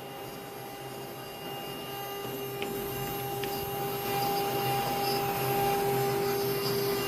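YH-1325 single-spindle CNC router running: a steady whine from the spindle motor over a rushing machine noise, growing louder about midway.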